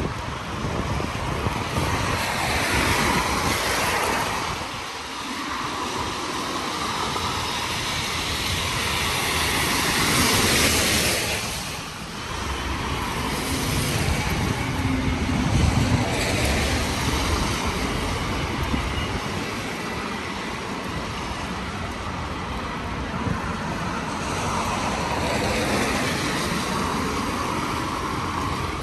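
Vehicles passing: a steady rush of noise that swells and fades several times.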